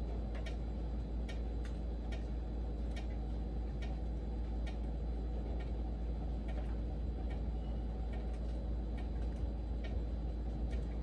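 Rain: a steady low rush with scattered sharp ticks of individual drops, irregular and about one or two a second.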